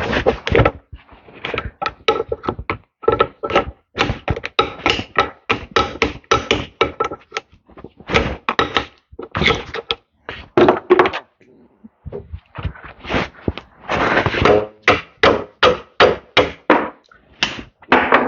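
Rapid, repeated blows of a hammer on a screwdriver driven into a seized set screw, several strikes a second in uneven runs with a brief pause about two-thirds of the way through. The pounding is hard enough to break the handle off the screwdriver and leave the blade stuck in the screw.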